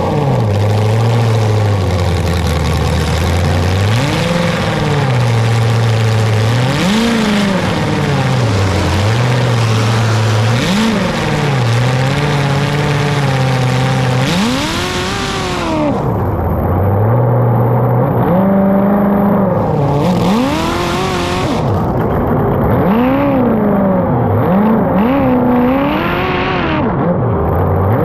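Racing engine revving up and falling back again and again, its pitch climbing and dropping every two to three seconds as the throttle is worked.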